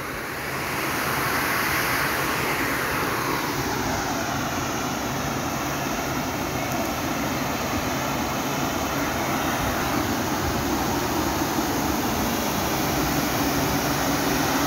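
Steady rush of water pouring from a dam's outlet opening into a concrete canal, an even, unbroken noise.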